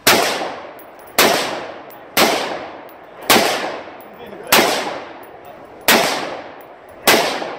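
AR-15-style semi-automatic rifle firing seven single shots at a steady pace, about one a second, each followed by a fading echo.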